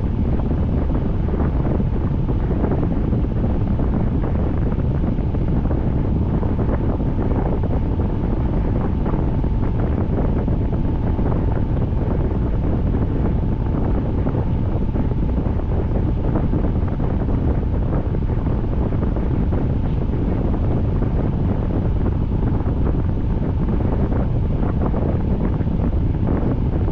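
Steady, loud rush of rain falling, with a faint steady whine beneath it.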